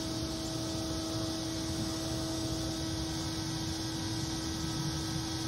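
Home-made bee vacuum running steadily: a constant motor hum over an even rush of suction as it draws bees out of a water meter pit through its hose.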